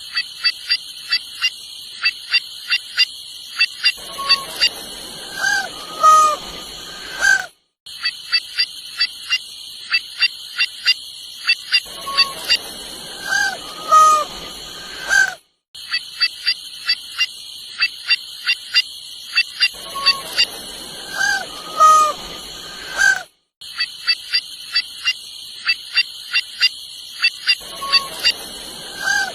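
White-naped jay calling: a quick run of sharp clicking notes, then loud nasal honking calls that bend in pitch. The same sequence repeats, broken by brief silent gaps, over a steady high-pitched drone.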